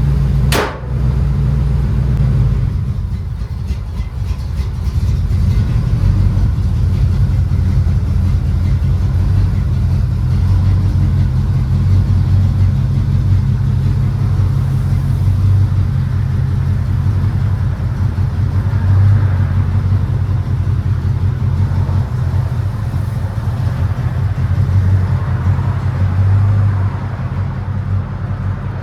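Steady low engine and road rumble heard from inside a moving vehicle, with a sharp thump under a second in.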